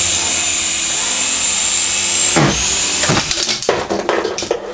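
Syma S107H coaxial RC helicopter's small electric motors and counter-rotating rotors whirring with a steady high whine. About halfway through the pitch drops as the throttle comes down, and the sound breaks up into uneven whirring with clicks and knocks as the helicopter comes down onto the table.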